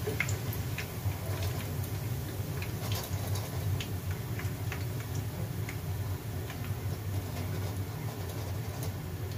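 Hot frying oil crackling in scattered small pops and ticks as the fried jackfruit-seed chops are held over the pan in a wire spider strainer, dripping oil back in. A steady low hum runs underneath.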